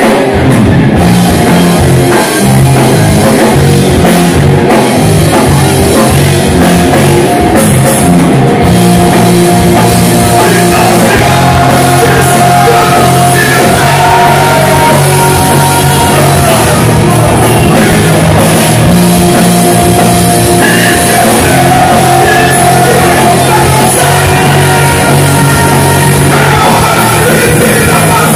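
Live rock band playing loud: electric guitars and drum kit with a singer's vocals over them, steady throughout.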